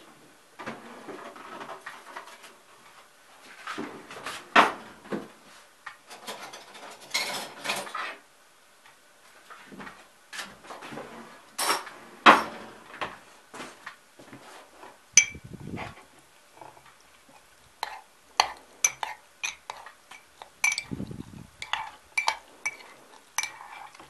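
Metal cutlery and dishes clinking and clattering in irregular sharp knocks, scrapes and clicks, with a few louder knocks about four and twelve seconds in.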